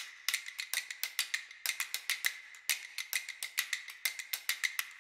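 Background music of quick, light ticking percussion, about five or six clicks a second, over a faint steady high tone.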